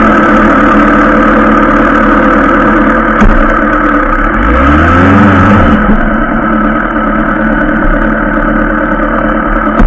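Yamaha motorcycle engine idling steadily, freshly started, with one short rev up and back down about five seconds in.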